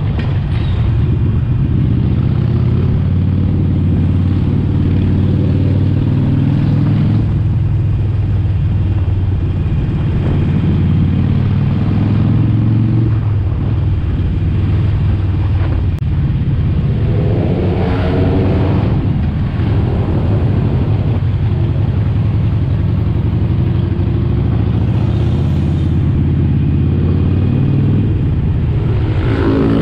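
Harley-Davidson Sportster Forty-Eight's 1200 cc air-cooled V-twin running on the road with a deep, steady note. The engine note changes several times as the bike slows and speeds up, with two short revs near the middle and at the end.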